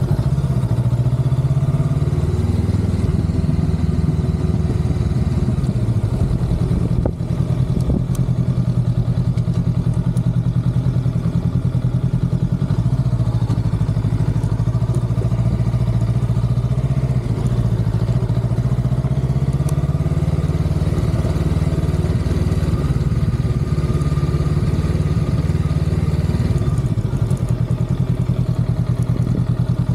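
Honda Rebel 500's parallel-twin engine running at low revs as the motorcycle is ridden slowly, its pitch shifting up and down now and then with the throttle.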